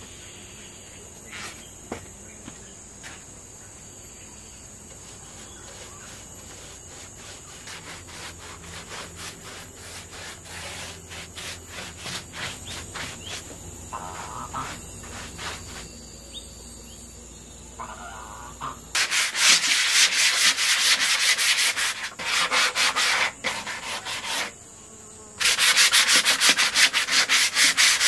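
Sandpaper rubbed by hand over a rough wooden board in rapid back-and-forth strokes. The sanding is loud in two long runs in the second half, with a short break between them.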